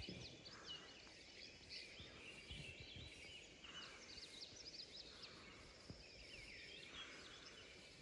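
Faint pre-dawn chorus of small birds: many short chirps and quick whistled sweeps from several birds, overlapping, over a soft outdoor hiss.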